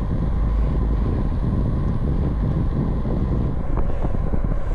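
Wind rushing over the camera's microphone while riding a bicycle at about 15 mph, a steady low rush.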